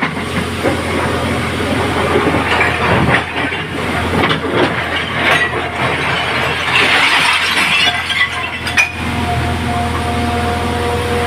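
Heavy earth-moving machine's engine running steadily while granite stones clatter and knock against each other and metal as they are loaded, with many sharp hits throughout. A steady whine comes in near the end.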